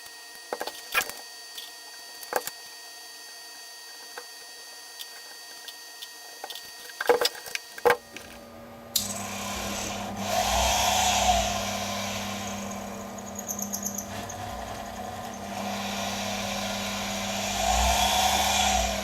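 A few clicks and knocks of small metal parts being handled. About halfway through, the lathe's small single-phase speed-adjustable electric drive motor starts and runs with a steady hum. Its whine rises and falls in pitch twice as the speed is turned up and back down.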